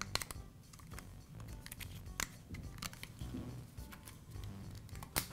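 Small clicks and taps of plastic parts as a Dremel rotary tool's plastic housing and its protective film are handled and fitted back together; a scattering of sharp ticks, the loudest near the end.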